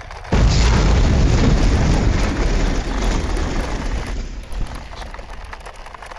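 A loud explosion-like blast starts suddenly about a third of a second in, then a deep rumble slowly dies away over the next few seconds.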